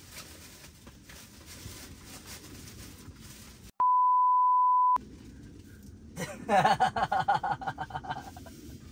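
A one-second censor bleep, a pure steady tone at about 1 kHz that replaces the audio around it and masks a spoken word. A couple of seconds later, a man's loud burst of laughter in quick repeated pulses.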